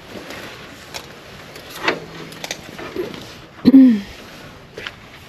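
Grease gun being worked on a sawmill idler roller's grease fitting: a few light clicks and knocks, with one short, louder squeak whose pitch drops, a little before the four-second mark.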